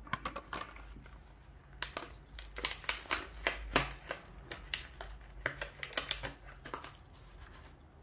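Hot Wheels plastic blister pack and card backing being cracked open by hand: an irregular run of sharp crackles, clicks and crinkles.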